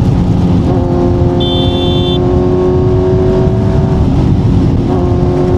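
Kawasaki Z900's inline-four with an Akrapovic exhaust running at a steady cruise over a dense low rush of wind and road noise; the engine note dips briefly about four seconds in. A short high beep sounds about a second and a half in, lasting under a second.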